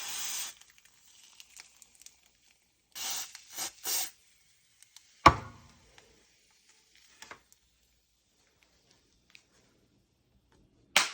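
Short rasping, scraping strokes against a flip phone, with one sharp knock a little after five seconds in.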